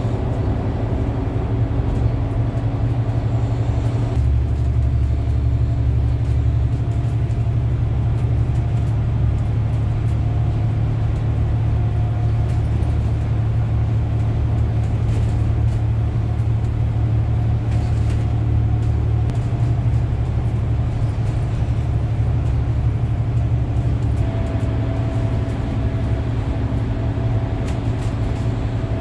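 Bus engine and tyre noise heard from inside the cabin while driving through a road tunnel: a steady low drone with faint humming tones above it and a constant haze of road noise.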